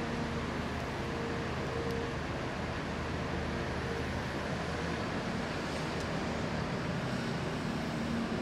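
Caterpillar 340F long-reach excavator's diesel engine running steadily under heavy machinery noise, with a faint steady tone that comes and goes.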